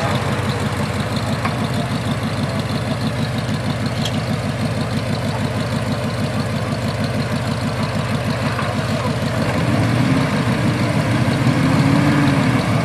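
Cobra-replica roadster's engine idling through its chrome side-exit exhaust pipes with a steady, even pulse, getting a little louder near the end.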